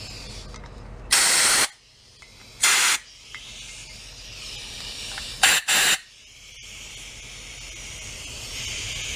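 Compressed-air blow gun blasting through the passages of an antique Briggs & Stratton carburetor body to clean it out: four short bursts of air, the last two in quick succession. A steady hiss comes up near the end.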